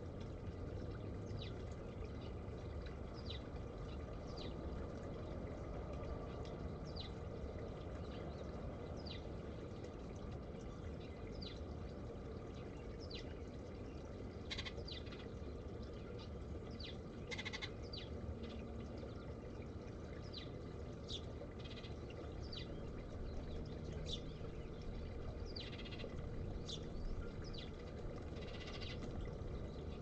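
Small birds calling with short, high, falling chirps, roughly one a second, over the steady trickle of a small garden fountain.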